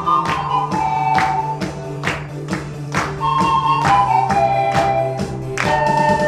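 Pan flute ensemble playing a sustained, breathy melody over a backing track with a steady drum beat about twice a second and a low bass line.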